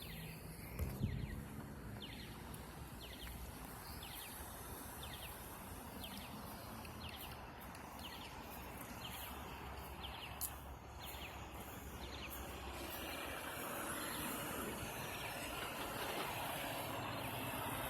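Outdoor background of a vehicle engine running with a steady low hum, while a short high chirp repeats about once a second. Near the end a broad traffic-like noise grows louder as the chirps fade.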